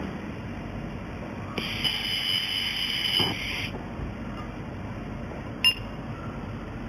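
A high-pitched electronic beep held for about two seconds, then one short beep about two seconds later, over a steady background rumble.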